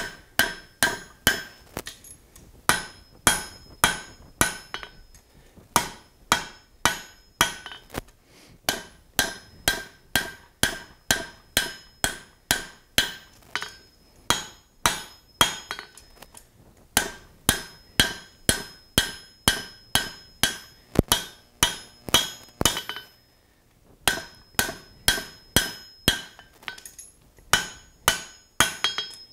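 Blacksmith's hammer striking a red-hot steel bar on the anvil face while forging a square corner. The blows come in quick runs of about two or three a second with short pauses between runs, and each strike rings briefly off the anvil.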